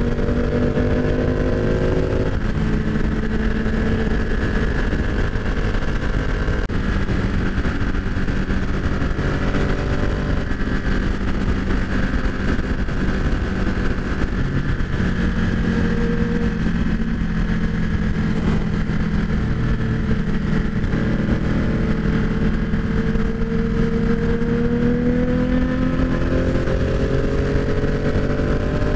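Ducati 899 Panigale's L-twin engine running at highway speed, with wind rushing past. Its pitch climbs over the first two seconds, drops, and climbs again near the end.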